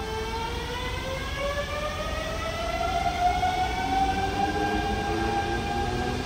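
Electric train's motor whine rising steadily in pitch as the train accelerates, then levelling off to a steady tone, over the rumble of the train on the track.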